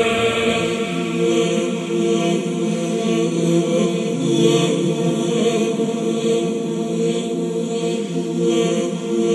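Soundtrack music built on a held, chant-like vocal drone: many steady tones sustained together, with a faint regular pulse in the high end.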